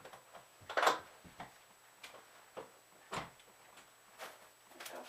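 Upholstery staples being pried out of a chair's wooden back panel with a small metal hand tool. A series of short, irregular clicks and scrapes, the loudest about a second in.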